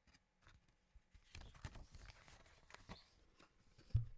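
Handling noise from a Blu-ray case and its paper and card packaging: scattered light clicks and rustles, with one low thump near the end.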